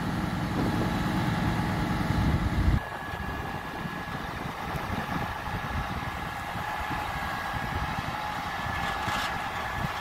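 Diesel engine of a Putzmeister 47 m truck-mounted concrete pump running at idle. A heavier low rumble fills the first three seconds or so and drops away abruptly, leaving a steadier, quieter engine hum.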